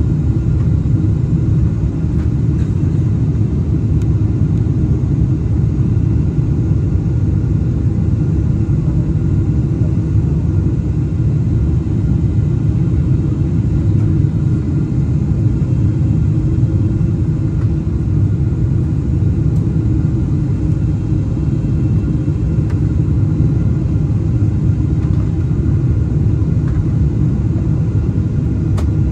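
Steady low rumble of a Boeing 747-8 heard inside the cabin, unchanging throughout.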